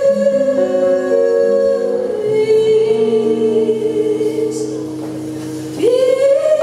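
A woman singing long held notes into a microphone, with live guitar and double bass accompaniment beneath. The held note steps down about two seconds in, and a new note swells up near the end.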